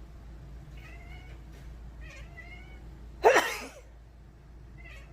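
Domestic cat meowing: a few short, faint chirping meows, then one loud yowling meow about three seconds in.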